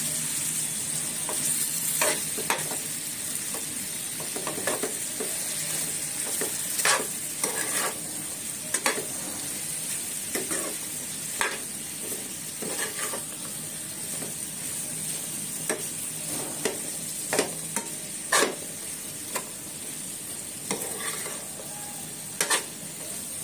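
Capsicum bhaji sizzling in oil in a pan while a spatula stirs it. A steady sizzle runs under irregular scrapes and taps of the spatula against the pan.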